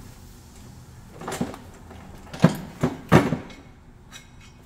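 Four sharp metallic knocks and clanks, the last three in quick succession, as the removed rear brake rotor and a hand tool are handled.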